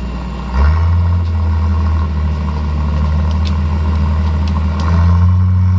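Truck engine running under load, its note stepping up about half a second in and again near the end as the throttle is opened. There are a few faint ticks in between.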